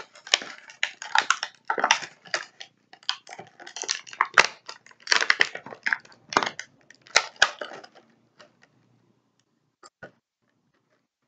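Plastic toy packaging crinkling and crackling in the hands as a small plastic lightsaber is worked out of it. The crackling thins to a few scattered clicks for the last few seconds.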